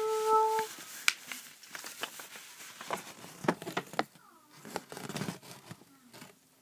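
A short held vocal note, then paper crinkling and rustling with scattered taps and clicks as a sheet of paper and the phone are handled close to the microphone.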